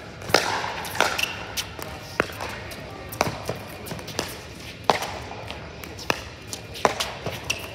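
Pickleball paddles hitting a plastic pickleball in a fast rally, about a dozen sharp pops at an uneven pace, with a couple of short high sneaker squeaks on the court.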